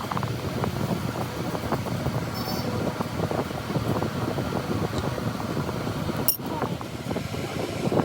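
Steady mechanical running noise, like a machine or fan, with a short break about six seconds in.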